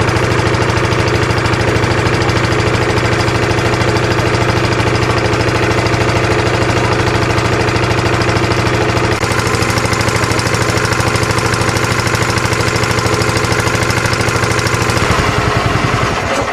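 Engine of a small wooden river ferry boat running steadily under way, heard from inside the boat with a fast, even chugging pulse. Its note shifts slightly about nine seconds in, and the sound falls away at the very end.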